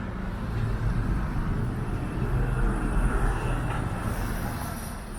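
Street traffic: a heavy vehicle's low engine rumble swells, peaks about three seconds in and fades as it passes.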